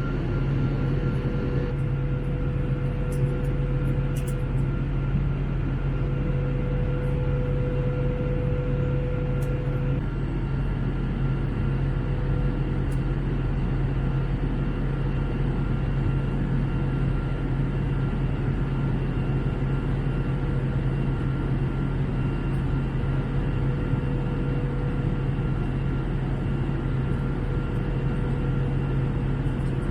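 Steady cabin noise of an Airbus A321 in flight: a constant drone of engine hum and rushing airflow, with a low hum and a few faint steady tones running through it.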